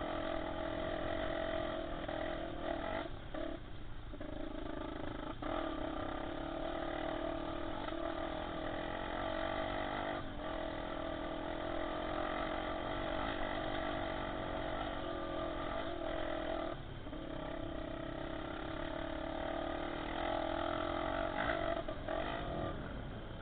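Honda XR250 Tornado trail motorcycle's single-cylinder four-stroke engine running steadily as the bike is ridden, heard from a camera mounted on board. The engine note briefly drops a few times, at about three, ten and seventeen seconds in.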